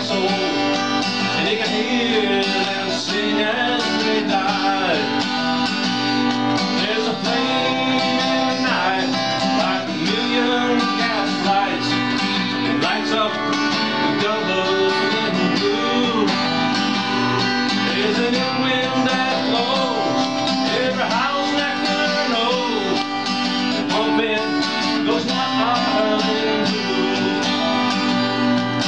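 A man singing a blues song while strumming an acoustic guitar.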